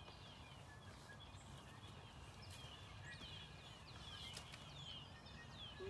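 Quiet ambience with small birds chirping: many short, high chirps falling in pitch, over a low steady rumble, with a couple of faint clicks.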